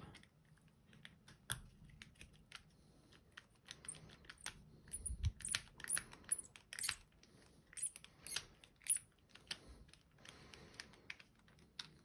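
Small screwdriver working a tight, over-torqued screw out of the back of a brass Goal lock cylinder: irregular light metal clicks and ticks, with a few short high squeaks in the middle.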